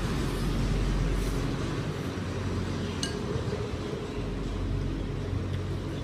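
A metal spoon and chopsticks clinking against a ceramic soup bowl as noodle soup is stirred, with one sharp clink about three seconds in. A steady low rumble runs underneath.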